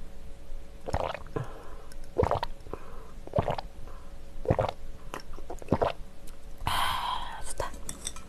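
A person gulping a drink, five swallows a little over a second apart, followed about seven seconds in by a breathy exhale.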